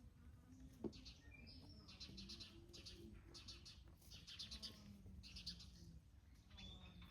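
Birds chirping in quick, repeated high trills, over a few soft, low, drawn-out chicken murmurs. There is a single faint tap about a second in.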